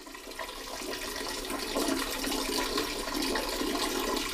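Toilet flushing: a steady rush of water that swells up over the first second and keeps going.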